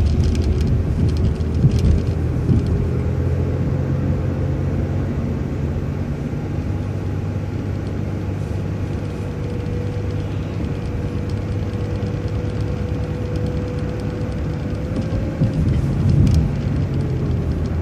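City transit bus driving along, heard from inside: a steady engine drone and road noise, with a faint drivetrain whine that rises in pitch over the first few seconds, holds, and falls away near the end. A few short rattles or knocks come near the start and again near the end.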